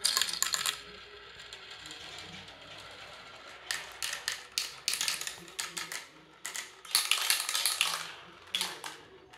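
VTech marble run: its balls are released from the top bowl with a burst of clattering, then roll along the plastic tracks with a steady rolling sound. Runs of sharp clicks and clatters follow about four seconds in and again about seven seconds in, as the balls drop through the pieces and spirals.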